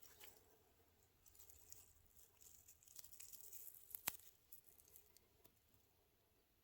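Faint rustling and crackling of footsteps through dry grass and brush, with one sharp click about four seconds in.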